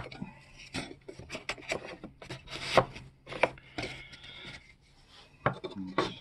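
Wooden hive-frame end bars knocking and rubbing against each other and the wooden jig as they are set in a row: a string of irregular wooden clacks with some scraping, the loudest nearly three seconds in.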